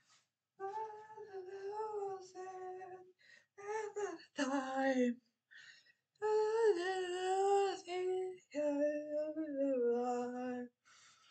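A single voice singing without accompaniment, in long held notes that bend in pitch, phrase by phrase with short breaks between.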